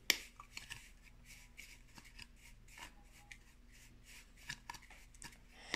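Crumbly butter-and-sugar mixture being stirred and scraped in a glass mixing bowl: faint, irregular short scrapes and rubs.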